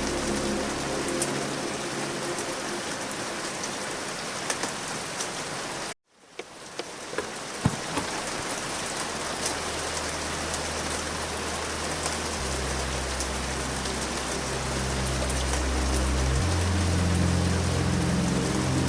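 Steady rain with scattered drop ticks under a soft ambient music bed of low, sustained tones. About six seconds in, everything cuts out for a moment, then the rain fades back in and the low notes slowly return.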